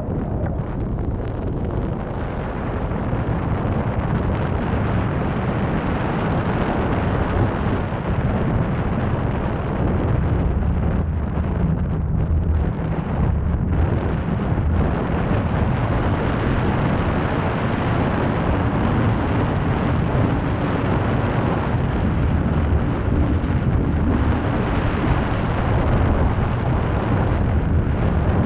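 Steady rumbling wind buffeting the microphone of a camera mounted on the roof of a moving car, mixed with the car's road noise. The rumble grows a little louder over the first few seconds, then holds steady.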